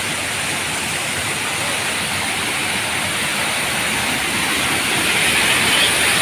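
Waterfall running high after heavy rain: a steady rush of falling water that gets louder about five seconds in.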